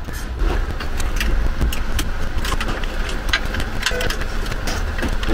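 Small wrench working the threaded end fitting of a new clutch cable: a run of irregular, sharp metal clicks over a steady low rumble.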